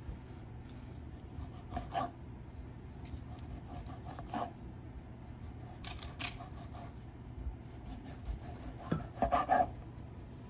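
Kitchen knife slicing a grilled chicken breast on a plastic cutting board: scattered short taps and scrapes of the blade against the board, the loudest a quick run of three near the end.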